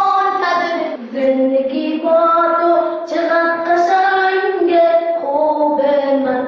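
A single high voice singing a Persian song, holding each note for about a second.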